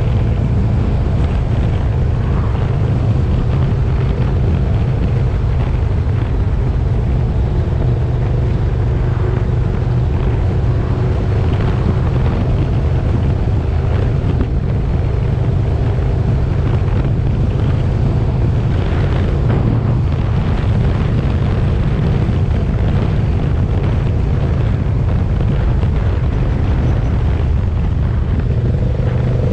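KTM 1290 Super Duke GT's V-twin engine running at steady, easy revs while riding, under a heavy steady low rumble.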